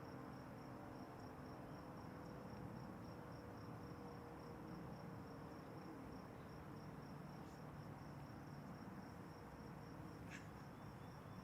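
Quiet outdoor ambience dominated by an insect's steady, high-pitched pulsing trill, about five pulses a second. A faint low tone slowly falls in pitch underneath, and a single short high chirp sounds near the end.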